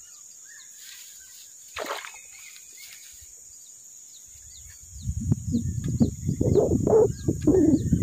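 Steady high insect drone with a bird giving short repeated chirps. About two seconds in there is a single short sharp sound, and from about five seconds in a loud, irregular low rumbling noise.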